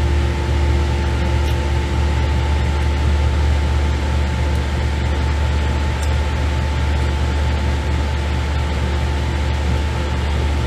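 Air conditioner running: a steady hum with a strong low drone and two faint steady higher tones, unchanging throughout, with a couple of faint light clicks.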